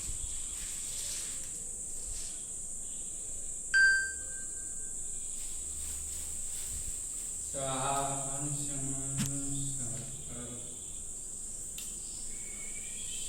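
Crickets chirring steadily in the night. About four seconds in, a single loud bell-like ding rings out and fades within a second or so. Around the middle, a man's low voice sounds steadily for about three seconds.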